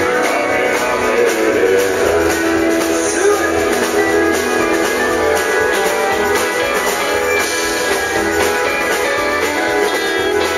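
Live country band playing, with strummed acoustic guitars and electric guitar at the front of the mix.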